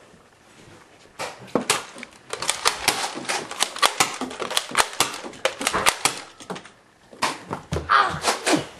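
A quick, irregular run of sharp clicks and knocks, several a second, with a short pause about two-thirds of the way through.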